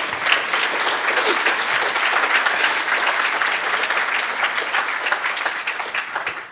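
Audience applauding: many people clapping together in a dense, steady patter that thins out near the end.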